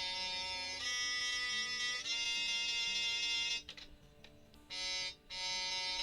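Roland Aerophone Mini digital wind instrument playing a slow melody of long held notes, changing note twice in the first two seconds. It stops for about a second midway, then plays a short note and goes into another held note.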